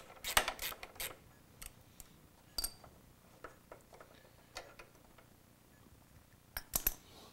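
Metal hand tools and hardware clicking and clinking on a dirt bike's rear shock mounting bolts: a quick run of clicks near the start, scattered single clinks, one with a brief ring, and another short burst near the end.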